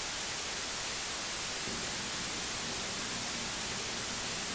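Steady static hiss of a broadcast dead air, with a faint low hum joining in a little under two seconds in.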